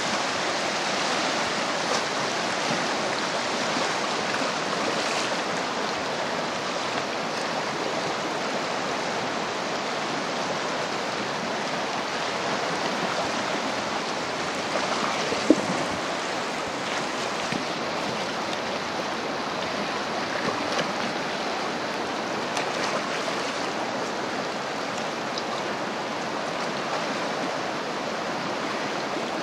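Steady rushing of a fast-flowing river riffle, with one short knock about halfway through.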